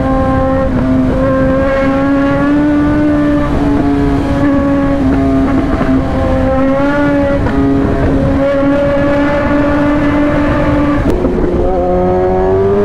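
Sport motorcycle engine and exhaust running at steady high revs under way, one held pitch that rises and falls slightly. About eleven seconds in there is a click and the pitch drops, then climbs again.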